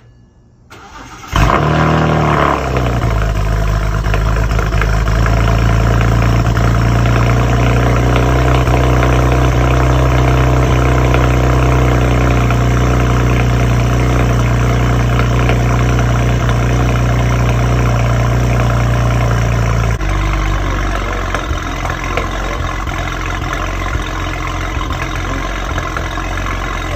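BMW 335i's N54 twin-turbo inline-six cold-starting: it cranks briefly, catches about a second in with a rev flare, then holds a steady fast idle. About twenty seconds in the idle drops and turns uneven, a rough idle that the owner suspects is a misfire.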